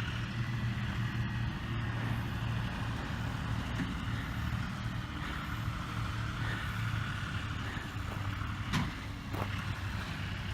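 A motor vehicle's engine running steadily with a low, even hum. There is a single short knock about nine seconds in.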